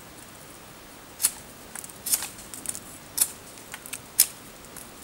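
Knife blade scraping down a wooden stick in short, light strokes, roughly one every half second to a second, some in quick pairs, the sharpest just after four seconds in.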